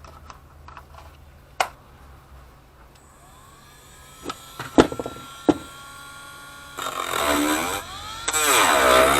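A Dremel rotary tool spins up about three seconds in, its whine rising and then holding steady, with a couple of sharp knocks. From about seven seconds it cuts into the carbon fiber panel, much louder and rougher, its pitch sagging and wavering under load, with a short let-off just after eight seconds.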